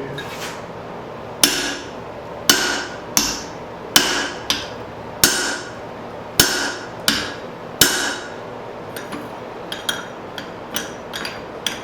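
Hand hammer striking a punch driven through hot steel on the anvil, punching the eye of a forged hammer head: about ten heavy ringing blows, roughly one a second, then lighter, quicker taps over the last few seconds.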